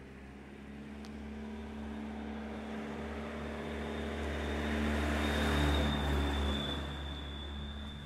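A car passing by on a street: its engine and tyre noise grow louder to a peak about five and a half seconds in, then fade away.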